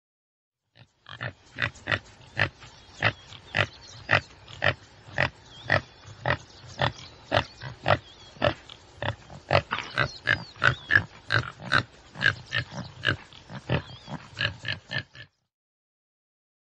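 Tsessebe (Damaliscus lunatus) giving a long, even series of short calls, about two a second, beginning about a second in and stopping shortly before the end.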